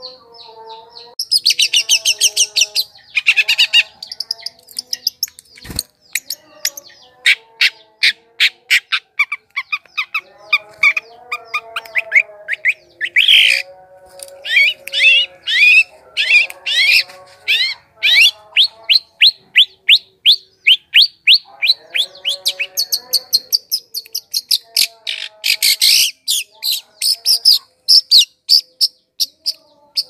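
Shrike singing a fast, scratchy chatter of rapidly repeated notes and quick falling whistles, mixed with lower warbled phrases, in bursts broken by short pauses. A single low thump comes about six seconds in.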